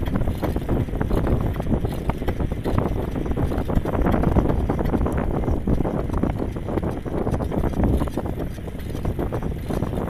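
Wind buffeting a moving microphone, a loud uneven rumble with many small irregular knocks and rustles mixed in.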